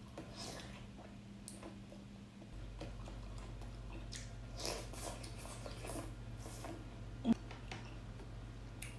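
Soft, close-miked chewing and wet mouth sounds of someone eating: scattered squishes and smacks over a steady low hum, with one brief sharper click about 7 seconds in.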